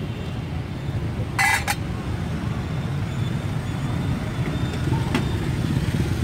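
Steady rumble of motorbike traffic on a city street, with one brief, sharp, high clink about one and a half seconds in.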